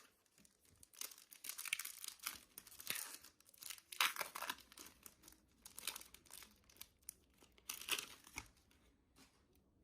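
Trading-card packaging being ripped open by hand: uneven bursts of tearing and crinkling that stop shortly before the end.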